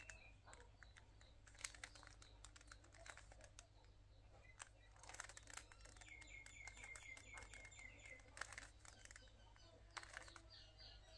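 Faint, irregular clicks of a 3×3 Rubik's cube being twisted by hand, layer after layer. A bird chirps a quick series of short notes about six seconds in, with more chirps near the end.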